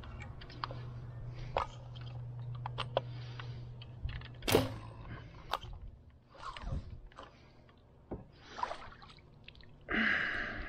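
Bowfishing shot from a kayak: one sharp crack about four and a half seconds in as the bow is loosed and the arrow hits the water, amid small clicks and knocks of the arrow and gear being handled. Near the end, a burst of splashing as the speared pleco is hauled out of the water on the arrow line.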